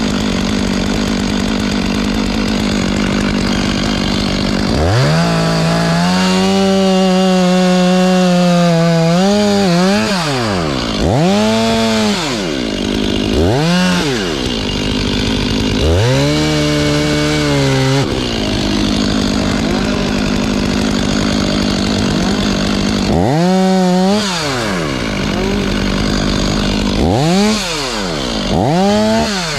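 Two-stroke chainsaw idling, then throttled up again and again to full revs, as in cutting. It holds high for a few seconds twice, and between those runs and near the end it gives short rise-and-fall bursts.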